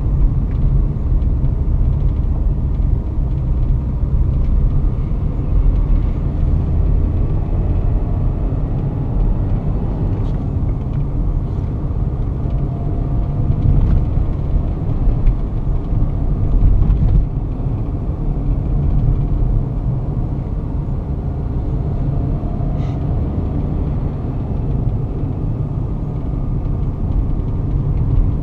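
Interior driving noise of a Volkswagen Touareg 2.5 R5 TDI, its five-cylinder turbodiesel engine and the tyres on the road making a steady low rumble heard inside the cabin.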